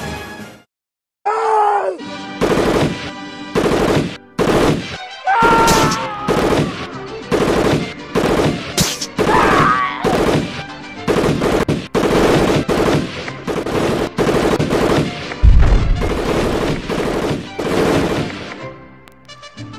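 Bursts of machine-gun fire, repeated over and over, with short cries from men between them. A heavy blast about fifteen seconds in is the loudest sound. Music comes up near the end.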